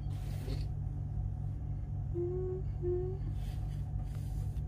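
A steady low hum fills the room, and a person hums two short notes at the same pitch, about two and three seconds in.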